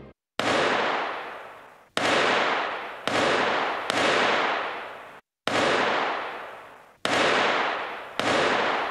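A string of about eight gunshots, each a sudden sharp bang that echoes and dies away over about a second, fired at irregular intervals.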